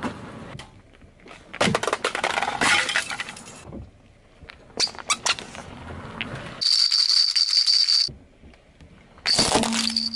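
Things being crushed under a car tyre on asphalt. First a crackling crunch lasting about two seconds, then a few sharp cracks. After that, rubber ducks pressed flat give a squeaky whistle for about a second and a half, and a short burst of cracking and squeaking comes near the end.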